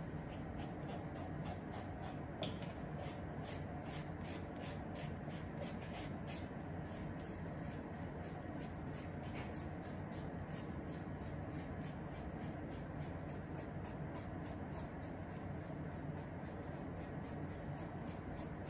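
Quick scratchy rubbing strokes on the suede upper of a Paraboot Michael shoe, about three to four a second, as fingers work along the apron stitching, over steady low background noise.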